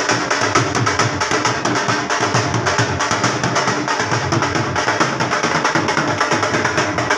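Dhol drum played in a fast, unbroken rhythm of sharp strokes.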